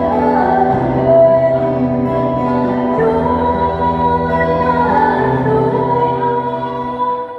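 Three women singing together into microphones over an instrumental accompaniment with a bass line; the music dies away near the end.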